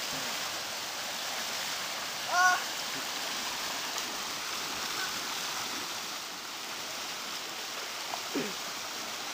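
Muddy floodwater rushing steadily. A short high voice call rings out about two seconds in, and a fainter falling call comes near the end.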